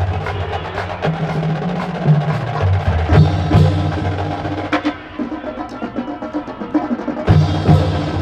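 Marching band drumline playing a cadence: sharp stick and rim clicks and snare strokes over low pitched drum notes, in a steady rhythm.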